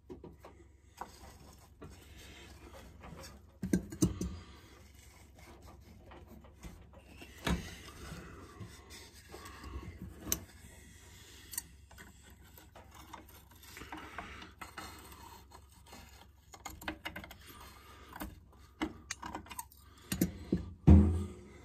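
Hand handling noises on a McCulloch Mac 10-10 chainsaw's air box and top cover as a homemade Scotch-Brite air filter is fitted: scattered clicks, scrapes and rubs, with a heavier knock near the end.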